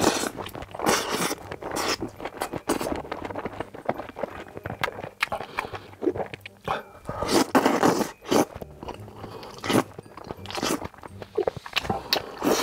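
Close-miked eating: long wet slurps of noodles in spicy cream sauce, with chewing and crunchy biting clicks between them.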